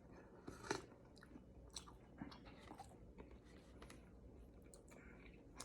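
Faint close-up mouth sounds of eating: a few small wet clicks as birria consommé is sipped and swallowed.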